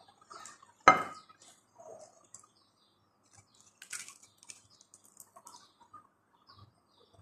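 Cutlery and plates clinking during a meal: one sharp knock about a second in, then light clicks, scrapes and rustles as food is handled on the plate.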